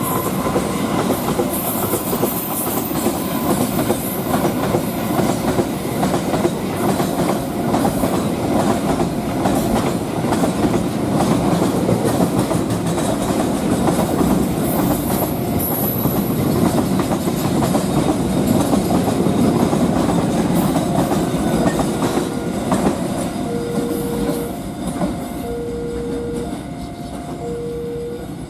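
Freight train wagons rolling past, the wheels clattering steadily over the rail joints and easing off near the end. In the last several seconds a short two-note tone repeats about every two seconds.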